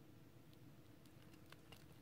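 Very faint crunching of a hamster nibbling a small piece of toasted bread: a few soft crackles, mostly bunched together in the second half, over a low steady room hum.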